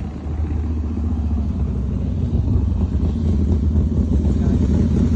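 A loud, dense low rumble that grows a little louder about two seconds in and then holds steady.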